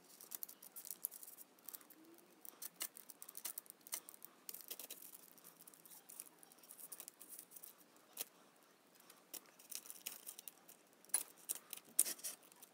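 Sharp knife scoring soft yeast-dough buns on a parchment-lined baking tray: faint, irregular clicks and scrapes as the blade cuts the dough and touches the paper and tray, with a couple of louder taps near the end.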